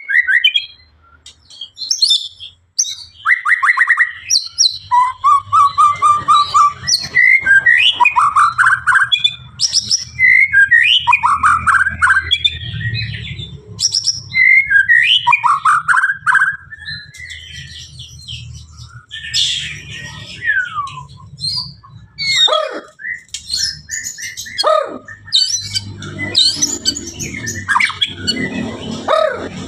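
White-rumped shama (murai batu) singing a loud, varied song of rapid trills, sweeping whistles and harsh chattering notes, phrase after phrase with short pauses, over a steady low hum.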